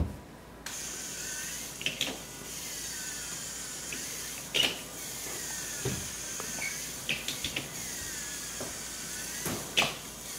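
A motorized LEGO AT-AT walker's electric motor and gear train start about half a second in and run steadily. A faint whine rises and falls in a repeating cycle as the legs stride, and there are a few sharp plastic clacks from the legs and feet.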